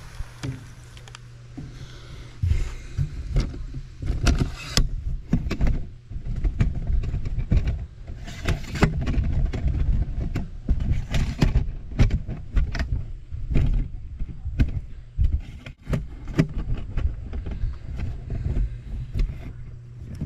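Compact tractor engine running steadily, with irregular clanking and rattling of the hitched steel log trailer and its chains throughout.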